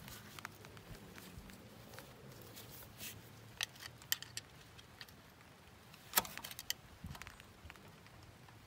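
Faint metallic clicks and taps of snap ring pliers and a steel snap ring against the Kubota front axle's steering knuckle as the ring is worked onto the spindle tip. The clicks come irregularly, the loudest about two thirds of the way through.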